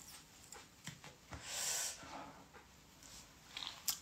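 A smoker's breath during a cigarette: one long breath through the lips, about half a second, a second and a half in. A few faint taps and clicks come before and after it.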